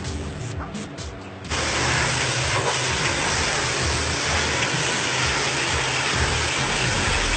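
Music, then about a second and a half in a sudden cut to the steady loud hiss of a high-pressure water spray washing a truck, with a low steady hum beneath.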